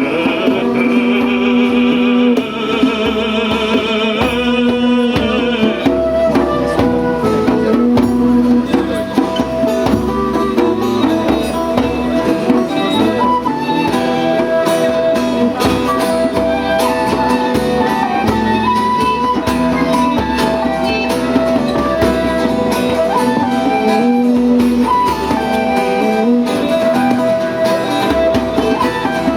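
A band playing an instrumental passage of a song with guitar, between sung verses. A high wavering melody line sits over the accompaniment for the first several seconds.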